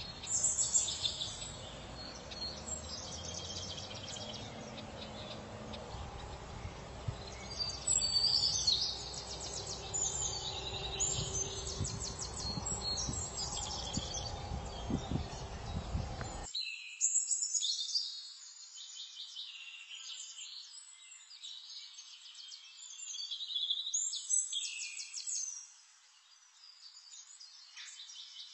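Birds chirping and singing, with many quick calls and trills. A low rumbling background noise under them cuts out suddenly about halfway through, leaving only the birdsong.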